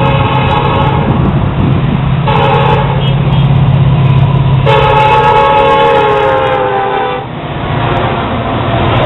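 Diesel locomotive air horn on an approaching Florida East Coast Railway freight train, sounding the end of a grade-crossing signal: a long blast, a short one, then a final long blast whose pitch drops slightly as the locomotive passes. Under the horn is a steady low diesel engine rumble, and after the last blast comes the noise of the passing locomotives and cars.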